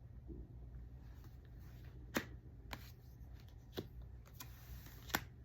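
Tarot cards being handled and shuffled, with four sharp card snaps at uneven intervals from about two seconds in, over a low steady hum.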